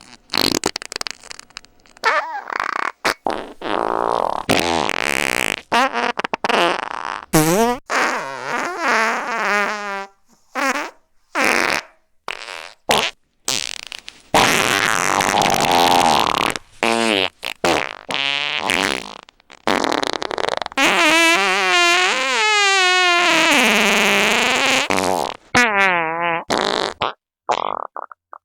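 A string of fart sound effects, one after another with short gaps. Many are brief, and a few are long and drawn out, their pitch wobbling up and down.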